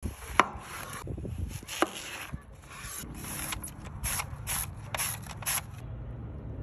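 Chef's knife cutting through a white onion, with two sharp knocks of the blade on the board. Then the onion is slid back and forth across a handheld mandoline slicer: a run of short scraping strokes, about two a second.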